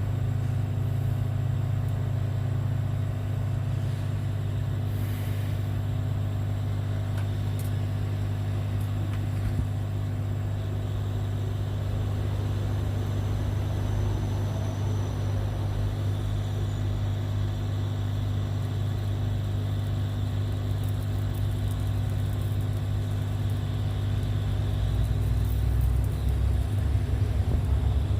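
Heat gun running with a steady low drone from its blower, used to desolder the phone's charging jack from the circuit board. The drone grows a little louder near the end.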